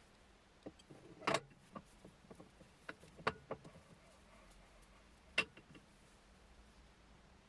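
Axminster 400mm aluminium button jaws on a woodturning lathe chuck being handled and adjusted by hand: scattered light clicks and knocks of metal parts, with three sharper ones about a second, three seconds and five seconds in.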